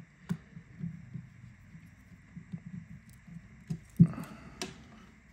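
Small clicks and light taps of hand tools on a smartphone's parts during disassembly, with a sharper knock about four seconds in and another just after.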